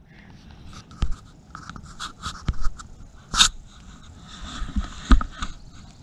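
Footsteps on dry twigs, leaves and pine litter: soft, irregular crunching and crackling, with a sharper snap about three and a half seconds in and another near the end, under a faint breathy hiss.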